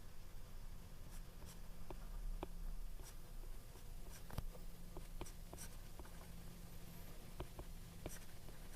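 Faint handwriting: a pen writing out equations, with scattered light taps and short scratches over a low steady hum.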